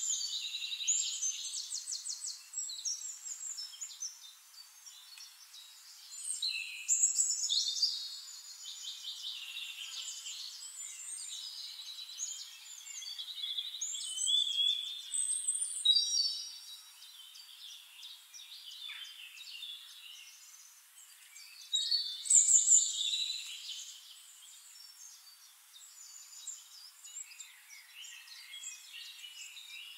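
Birds chirping and singing: a dense, high chorus of chirps and fast trills, with louder bursts now and then.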